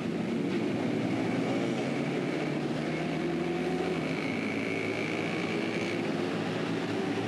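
Street traffic with motor rickshaw (tuk-tuk) engines running steadily, heard from a moving vehicle. A faint high whine comes and goes in the middle.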